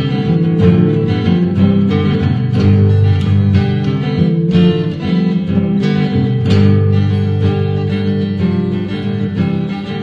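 Background music: a guitar tune of plucked and strummed notes.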